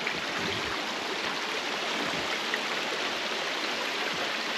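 Small mountain stream running over a rocky bed: a steady rushing and babbling of water.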